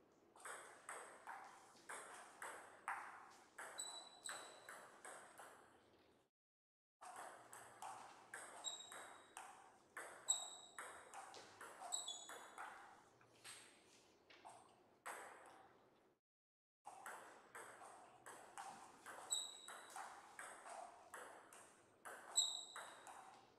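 Table tennis balls being hit back and forth, a quick irregular run of sharp ball clicks off paddles and table, about two to three a second. The sound cuts out completely twice for about half a second.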